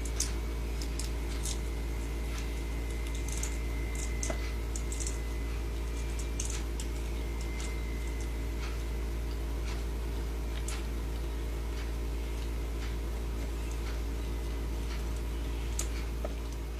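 A crab's claws picking at a snack: scattered small clicks and ticks, irregular, over a steady low hum.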